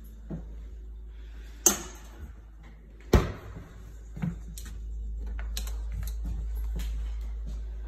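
Refrigerator and kitchen cabinet doors being shut and handled: two sharp knocks about a second and a half apart, then a run of lighter clicks and taps.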